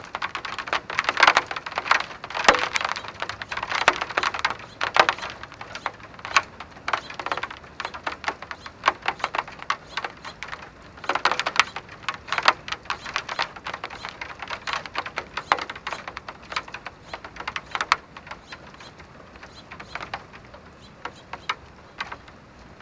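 Raindrops hitting a hard surface in dense, irregular clicks and ticks, thinning out over the last several seconds.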